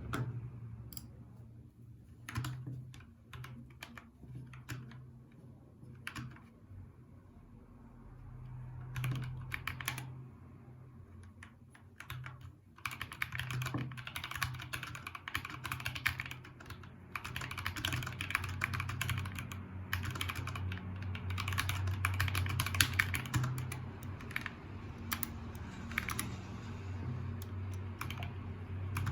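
Typing on a MIIIW Art Series mechanical keyboard with Gateron Yellow Pro linear switches and PBT keycaps. Scattered single keystrokes come first, then fast, continuous typing from a little before halfway.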